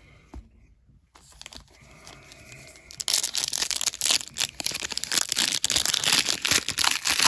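A football trading card pack's wrapper being torn open and crinkled, starting about three seconds in after a few faint rustles.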